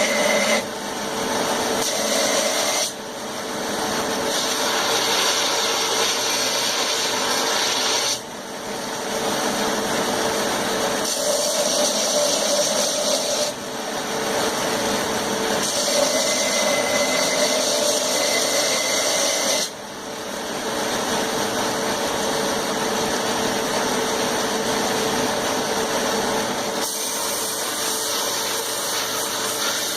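Power grinder rough-grinding a forged railroad-spike knife blank, steel held against the running abrasive in a continuous grinding rasp. The sound changes abruptly several times, dropping and picking up again every few seconds.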